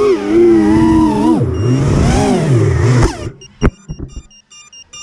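FPV racing quadcopter's 2206 2525kv brushless motors with 5-inch three-blade props whining, the pitch rising and falling with throttle. About three seconds in the motor sound cuts off, followed by a sharp knock and a few lighter knocks as the quad tumbles. Then comes a string of short electronic beeps.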